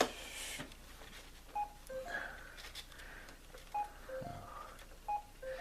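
Brother MFC-J2850W printer's control panel beeping as its touchscreen buttons are pressed: three pairs of short beeps, each a higher tone followed by a lower one.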